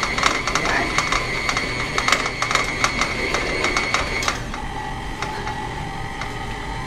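Electric stand mixer running, creaming butter and brown sugar, a steady whine with rapid clicking from the beater in the bowl. About four seconds in, the speed is turned down and the whine drops to a lower pitch.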